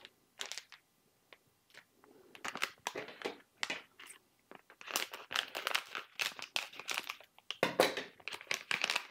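A blind bag's packaging being torn open and crinkled by hand: irregular crackling, sparse at first, then busier and louder from about five seconds in.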